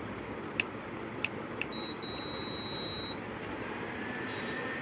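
Induction cooktop's control panel beeping as its buttons are pressed: a few short beeps, then one longer beep of about a second and a half, over a steady whirring from the cooker's cooling fan. A faint rising whine comes in near the end.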